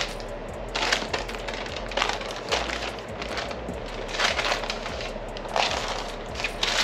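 Parchment paper rustling and crinkling in about half a dozen short bursts as it is lifted and rolled around a raw meatloaf.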